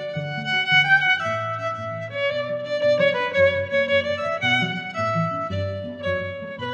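Background music: a violin melody of held notes over a low string accompaniment.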